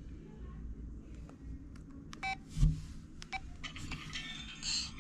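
Keypad beeps and clicks from an LG VM101 cell phone as its menus are stepped through, with a short beep a little after two seconds and a loud low thump about half a second later. A brighter, higher tone sounds near the end.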